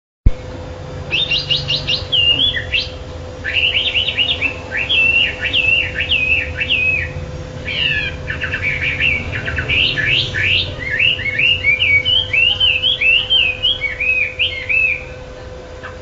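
Caged wambi songbird singing continuously, fast chattering strings of quick trills and down-slurred notes, phrase after phrase, over a steady low hum. A sharp click marks where the sound cuts in, about a quarter second in.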